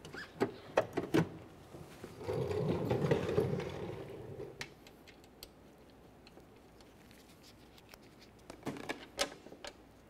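Door latch mounting bolts being started by hand into a steel car door: a quick run of light metallic clicks and taps, a rough scraping stretch about two seconds in, then a few more clicks near the end.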